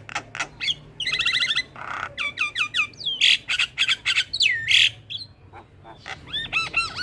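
Javan myna (jalak kebo) in full, varied song: sharp clicks, a fast rattling trill about a second in, harsh squawks, and whistled notes that slide down and swoop back up, with a run of looping whistles near the end.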